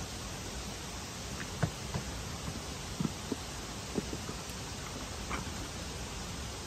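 Light knocks, taps and rustles of camping gear being handled in a plastic storage trunk, scattered irregularly, over a steady background hiss.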